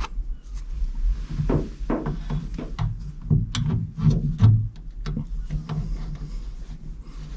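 A 3D-printed plastic steering wheel hook and clamp being fitted and tightened onto a roll cage tube, with irregular clicks, knocks and rubbing of plastic on metal. A steady low hum runs underneath.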